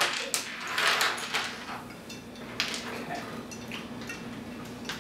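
Coins being set down on a tabletop: a few sharp little clicks in the first half, then quieter, over a steady low hum.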